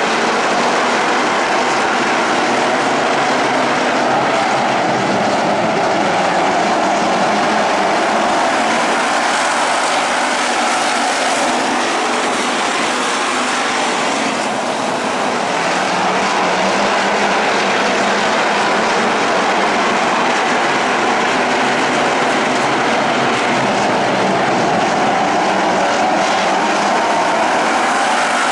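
A pack of dirt-track stock cars racing round the oval, their engines blending into one steady, loud drone of noise that eases slightly for a moment around the middle.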